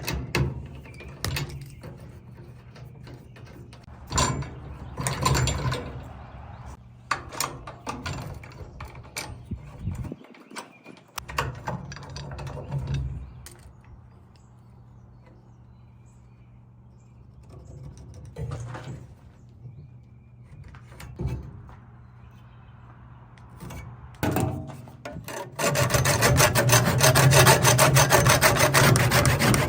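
Scattered knocks and scraping of hand work on a wheelbarrow, then a power tool starts about five seconds before the end and runs loudly with a fast, even rhythm.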